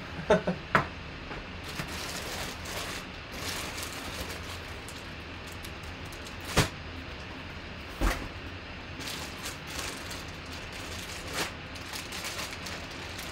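Plastic-bagged jersey being lifted out of a cardboard box and handled, the bag crinkling, with two sharp knocks about a second and a half apart around the middle.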